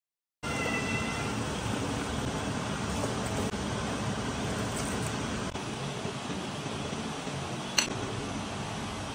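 Steady rushing, sizzling noise of cabbage and carrots cooking in a pot on a gas burner. Near the end, metal tongs strike the pot once with a sharp clink.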